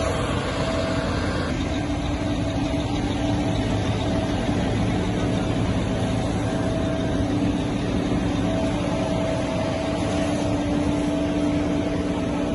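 Multirotor drone's motors and propellers humming steadily, a constant whir with a steady pitched drone over it.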